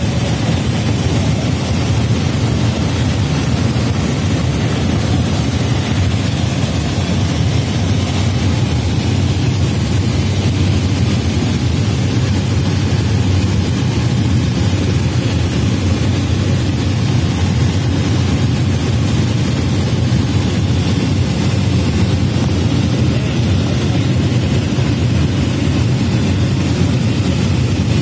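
Steady drone of a light propeller aircraft's engine and propeller heard from inside the cabin, deep and unchanging, with a thin high whine above it.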